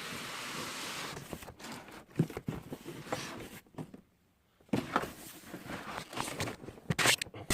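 Cardboard packaging being handled and opened: a scraping, sliding rustle at first, then scattered light knocks and clicks. The sound drops out completely for about a second midway.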